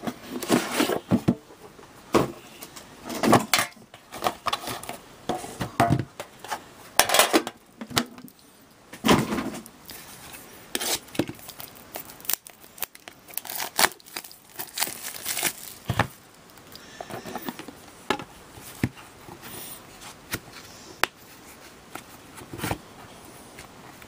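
Hands opening a trading-card box and its packaging: irregular tearing and crinkling of wrapping, with scattered clicks, knocks and scrapes as the box and foam insert are handled.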